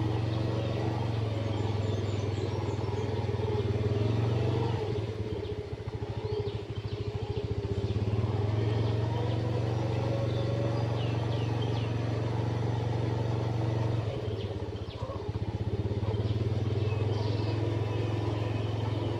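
Motorcycle engine running at a steady speed, its note easing off briefly twice.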